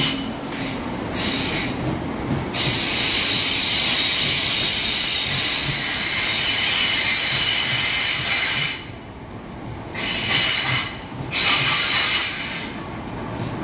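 Southeastern electric multiple-unit train moving slowly past the platform, its wheels squealing in a high-pitched, several-toned screech over a low rumble. The squeal drops away about nine seconds in, then returns in two short bursts.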